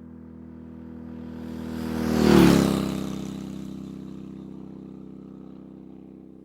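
A motor vehicle driving past: its engine note swells to a peak about two and a half seconds in, drops in pitch as it passes, then slowly fades away.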